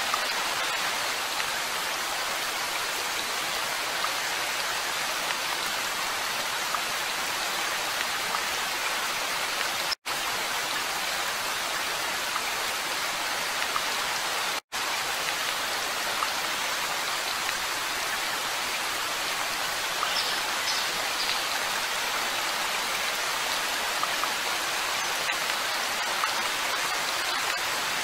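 Steady rain, an even dense patter with no pitch to it, cut off for a split second twice, about ten seconds in and again near fifteen seconds.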